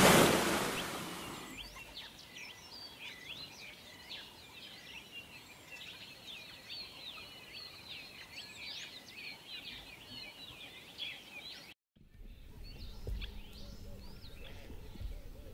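Many small birds chirping and trilling in a steady, faint chorus, after a louder wash of noise fades out in the first second or so. The sound cuts out briefly about twelve seconds in, then the birdsong resumes over a low rumble.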